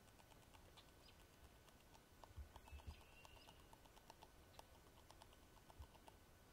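Beaver gnawing on wood in the water: a rapid run of faint crunching clicks, several a second, thickest through the middle.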